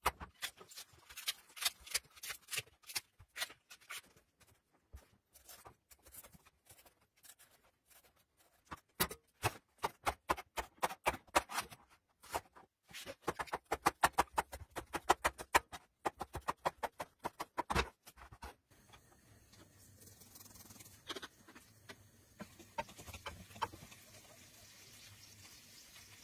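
Chef's knife chopping and slicing artichoke on a plastic cutting board: rapid runs of sharp taps with short pauses between them. About two-thirds of the way through this gives way to a faint, steady sizzle of chopped garlic frying in olive oil in a pan, with a few scattered clicks.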